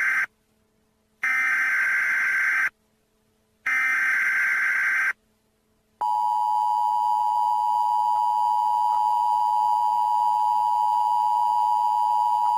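Emergency Alert System broadcast tones. The end of one SAME header data burst is followed by two more buzzy data bursts, each about a second and a half long, with short silences between. From about six seconds in comes the steady two-tone EAS attention signal.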